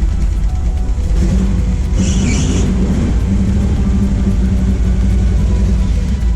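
Jeep engine running and revving as it drives over loose dirt, with music playing underneath. A short bright burst of higher sound comes about two seconds in.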